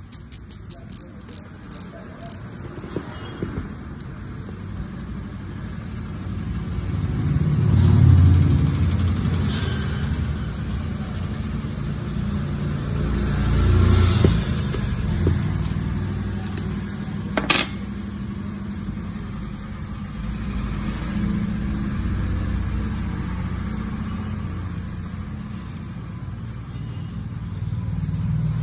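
Low engine rumble from road vehicles, swelling about 8 and 14 seconds in. Under it are small clicks from a baitcasting reel being handled, with a quick run of ticks at the start and one sharp click a little past halfway.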